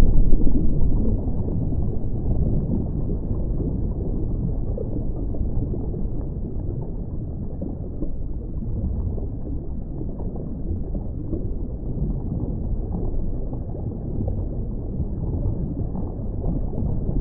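Steady, muffled low rumble of underwater ambient noise: water movement heard as a dull hiss and rumble.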